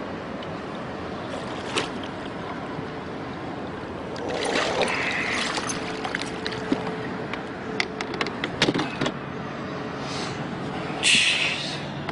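A muskie splashing and thrashing beside a boat as it is landed in a net: water sloshes about four seconds in, then a quick run of sharp knocks and clacks of the net against the boat, and a loud splash near the end, over a steady hum.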